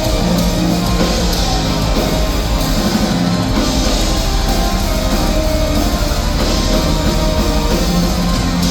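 Heavy metal band playing loud, dense and unbroken, with distorted electric guitars and a drum kit.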